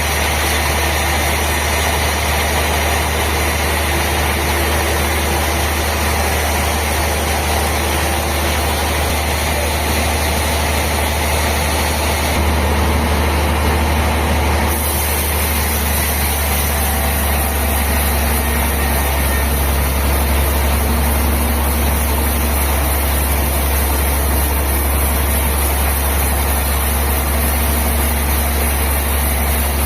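Sawmill machinery running steadily: a constant deep hum under an even mechanical noise, with a slight change in tone about twelve seconds in.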